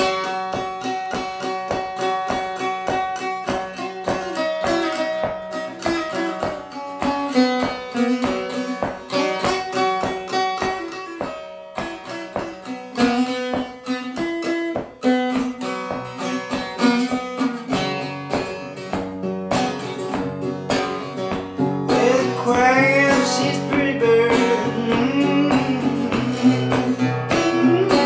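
Small-bodied parlor acoustic guitar fingerpicked, playing a folk tune with a regular plucked bass under the melody.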